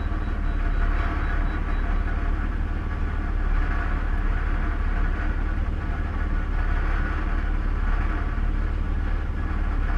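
Car engine idling, heard from inside the cabin: a steady low rumble with an even hiss above it.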